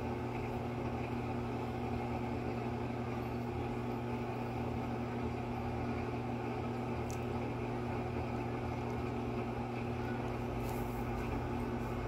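Electrolux top-loading washing machine in its spin cycle, spinning a pair of sneakers dry: a steady motor and drum hum with a few fixed tones.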